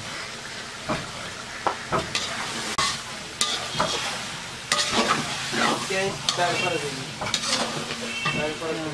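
Metal spatula stirring and scraping duck curry around a large metal kadai in repeated strokes, the curry sizzling as it fries.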